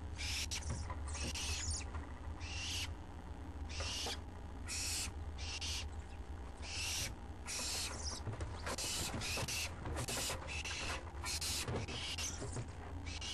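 Owlets giving repeated raspy, hissing begging calls, about one or two a second, each under half a second long, over a steady low hum.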